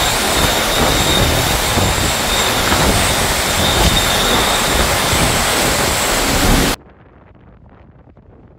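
Hurricane wind blowing hard with driving rain: a loud, steady rush with a faint high whistle. It cuts off suddenly about two-thirds of the way through, leaving a much quieter wash of rain and floodwater.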